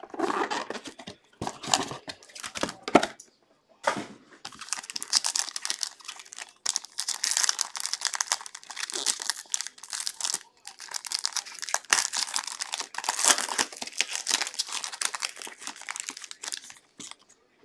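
Foil trading-card pack wrapper crinkling and tearing as it is ripped open by hand. A few short rustles of the box and pack being handled come in the first few seconds.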